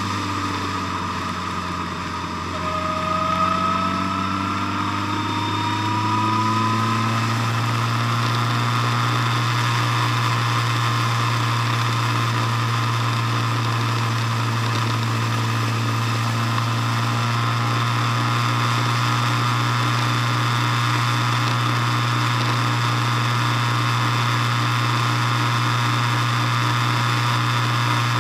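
A road vehicle's engine running as it drives along. The pitch rises over the first several seconds as it picks up speed, then holds steady.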